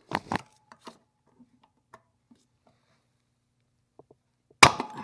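Needle-nose pliers working a large steel snap ring inside a cast-aluminium torque tube housing. There are two sharp metallic clicks at the start and a few faint ticks. Near the end comes a loud metallic snap with a brief ringing tone as the stuck ring resists removal.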